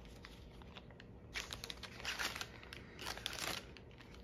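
Plastic crinkling in three short bursts as it is handled, starting a little over a second in.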